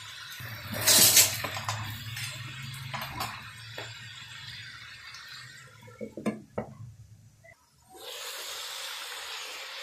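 Cookware clattering at a steel karahi: a loud metallic clatter about a second in, a few lighter clinks, then a glass lid clinking against the wok around six seconds in, over a low hum. From about eight seconds, chicken and tomatoes sizzle steadily in the karahi.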